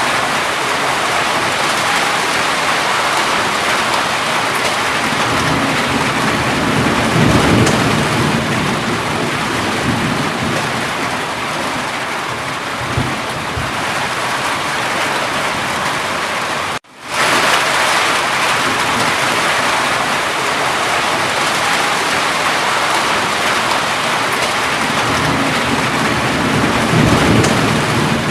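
Steady heavy rain, with low rolls of thunder swelling about six to eight seconds in and again near the end. The sound cuts out for a split second about seventeen seconds in.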